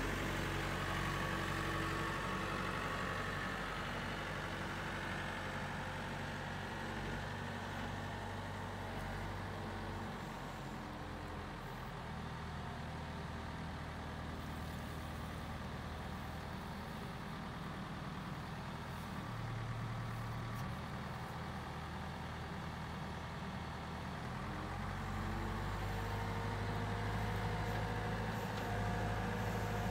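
Diesel engine of a CAT IT14G wheel loader running at a steady speed as the loader drives about. It grows fainter after about ten seconds and louder again in the last few seconds.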